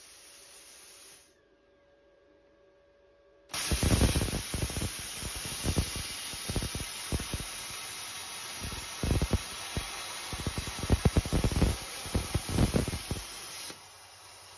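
Plasma cutter torch arc striking suddenly about three and a half seconds in and cutting steel plate for about ten seconds: a loud hissing rush with irregular crackling pops. It then cuts out, leaving a quieter steady hiss.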